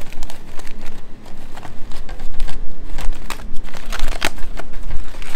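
Aluminium foil crinkling in irregular crackles as it is peeled open and lifted away by gloved hands.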